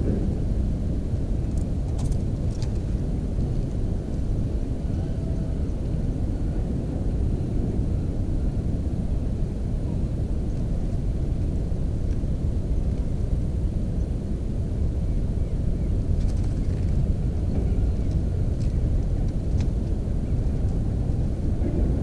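Steady low rumbling background noise, with a few faint short high ticks about two seconds in and again past the middle.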